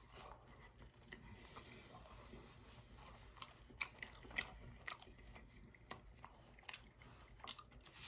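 A person chewing a mouthful of a soft biscuit-wrapped sausage, egg and cheese roll-up, faint, with scattered small mouth clicks.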